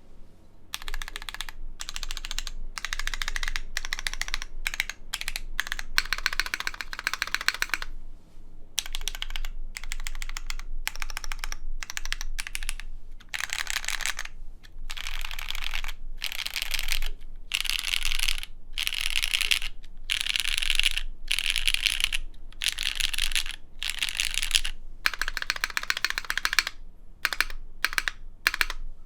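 Typing on a Duck Eagle v3 mechanical keyboard with linear Cherry MX Black switches on a top-mounted aluminum plate. It is fast, continuous typing in runs of keystrokes, with brief pauses every second or so.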